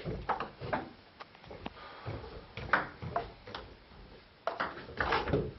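Table tennis rally: the celluloid ball clicking off bats and table in a string of short sharp ticks at uneven intervals, a busier cluster near the end.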